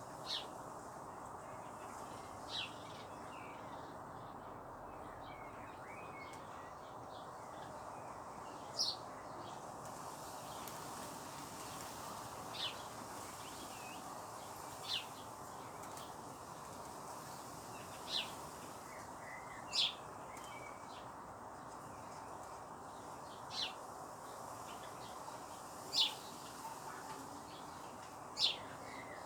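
A bird chirping: about ten short, high, single chirps spaced a few seconds apart, over a steady background hiss.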